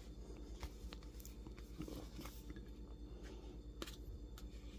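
Faint, scattered light clicks and taps of a plastic takeout bowl and food being handled as the sandwich is worked out onto a plate, over a steady low hum.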